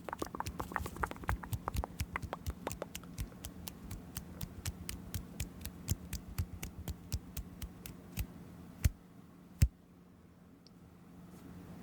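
Rapid series of small sharp clicks, about five a second, over a low steady hum; they stop after about eight seconds with two louder clicks.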